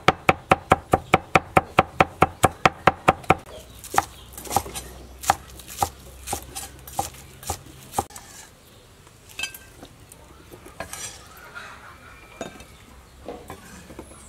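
Kitchen knife chopping garlic on a wooden cutting board: a fast, even run of chops, about five a second, for the first three seconds, then slower, irregular chops that thin out into scattered light knocks.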